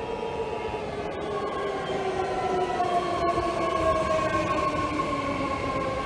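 BART train pulling into an underground station platform. Its running gear gives several whining tones that slide down in pitch as it slows, over a rumble that grows louder.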